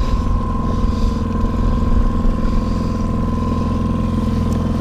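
Boat's outboard motor running steadily while trolling, a constant low rumble with a steady whine over it.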